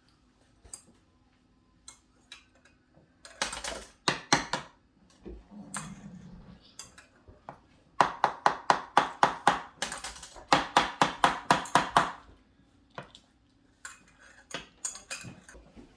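A kitchen utensil knocking against a bowl in quick runs of strokes, about five a second, with scattered single clinks between the runs, as in mixing.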